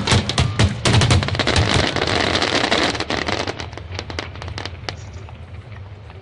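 Close-range fireworks finale: a dense barrage of bangs and crackling that thins out to scattered, fading pops over the last few seconds.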